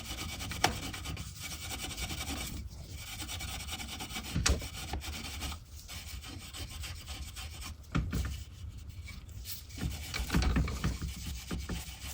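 Fine 3/0 steel wool rubbed back and forth over the finished wood of a chair: a steady scratchy rubbing with short pauses and a few light knocks.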